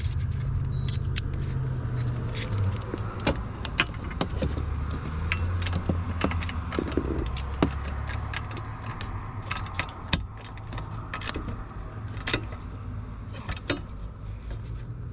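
Irregular sharp metallic clicks and clinks as the bracket bolts are tightened down with a hand tool until snug, over a low steady hum.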